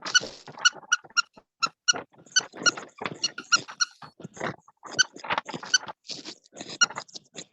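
A small dog giving rapid short, high-pitched yips, about two or three a second, with scuffling noises between them.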